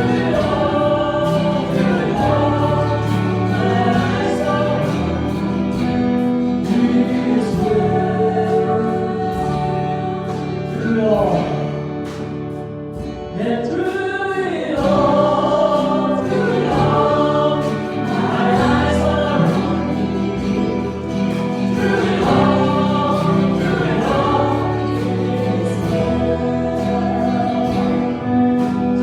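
Choir singing a gospel song with instrumental accompaniment.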